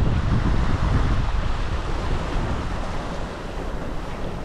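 Wind rumbling on the microphone over the rush of waves and water around a sailboat sailing on a beam reach in a fresh breeze.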